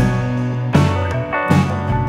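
Background music with guitar and drums on a steady beat.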